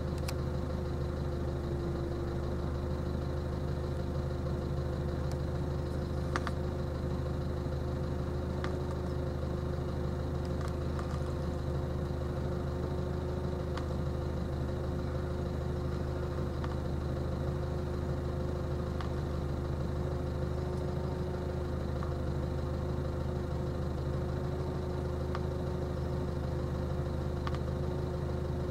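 A motor engine idling with a steady, unchanging hum, with a few faint clicks here and there.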